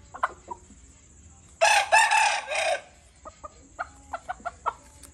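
A rooster crows once, loud and rough, about a second and a half in, lasting just over a second. Short clucking notes follow, about three or four a second.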